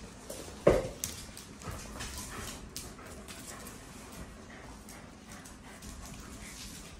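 Two dogs playing tug-of-war with a rope toy: one dog gives a single short, loud bark about a second in. Scuffling and claws clicking on a hard floor follow.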